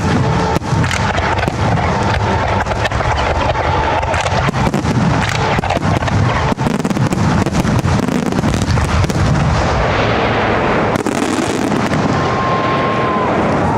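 Fireworks finale barrage: aerial shells going off in rapid, overlapping bangs without a break, with a wash of crackling about eleven seconds in.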